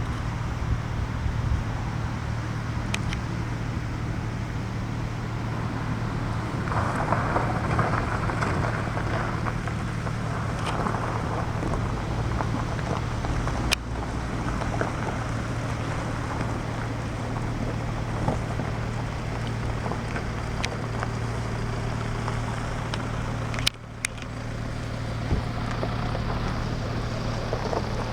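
Steady low engine drone with a continuous rush of wind noise over it; the sound briefly drops out about 24 seconds in.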